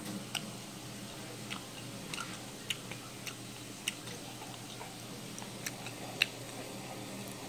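Scattered faint sharp clicks and ticks at irregular intervals over a low steady room hiss, one louder click about six seconds in.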